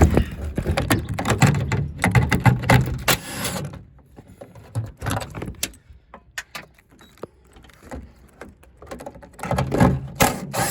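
Ratchet with a 10 mm socket clicking as the trunk latch's two bolts are backed out. There are dense runs of quick clicks for the first few seconds and again near the end, with only scattered clicks in between.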